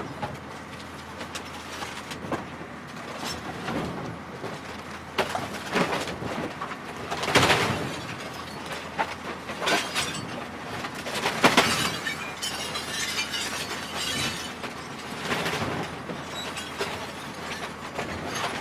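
Television set being smashed: a series of crashing impacts with glass shattering and breaking, the heaviest hits about seven and eleven seconds in, followed by a spell of tinkling, crackling debris.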